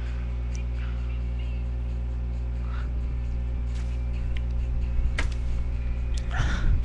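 Steady electrical mains hum, with a few faint short sounds, a click about five seconds in, and a louder breathy sound near the end: a person's sharp in-breath building toward a sneeze.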